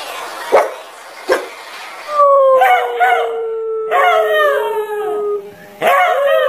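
Two short sharp barks, then a dog howling: long drawn-out howls that slide slightly down in pitch, with a short break before a new howl starts near the end.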